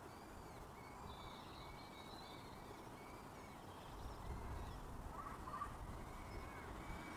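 Faint, repeated high cheeping of downy peregrine falcon chicks begging for food at the nest, about two short calls a second, over a steady background hiss. A low rumble comes up about halfway through.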